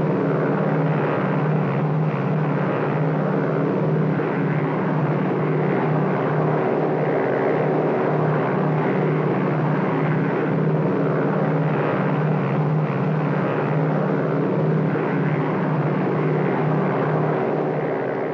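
Cabin interior of a PBY Catalina flying boat in flight: its twin Pratt & Whitney R-1830 radial engines and propellers drone steadily with a low, even hum.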